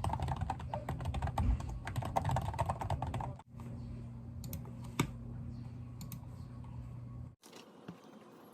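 Typing on a computer keyboard: a quick, irregular run of key clicks over a steady low hum, broken off abruptly twice, and much quieter after about seven seconds.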